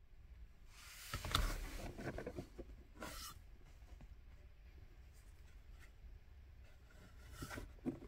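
Handling noise of fingers on a plastic wiring plug and handbrake warning light switch: a burst of rustling and scraping about a second in, a short scrape around three seconds, and another shortly before the end.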